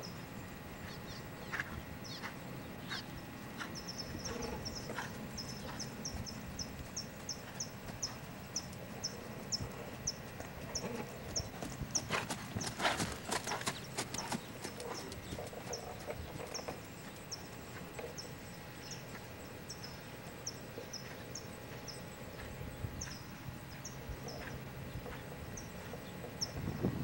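Lusitano stallion's hoofbeats on arena footing, in a steady rhythm of light clicks about twice a second. The hoofbeats grow louder and fuller about halfway through as the horse passes close by.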